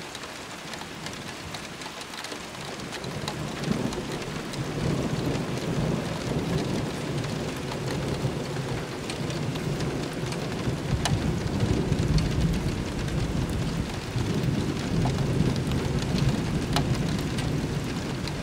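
Thunder rolling from an intra-cloud lightning flash about 3 km away: the deep rumble builds a few seconds in and keeps rolling to the end. Steady rain falls throughout, with scattered drop ticks.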